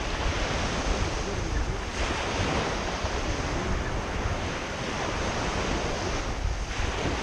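Small waves breaking and washing up on a sandy shore, with wind rumbling on the microphone.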